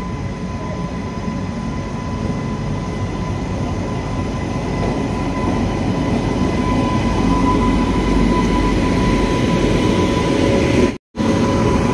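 Passenger train hauled by a WAG-9 electric locomotive rolling into a station: a steady rumbling that grows louder, with a thin, steady high whine over it. The sound cuts out for a split second near the end.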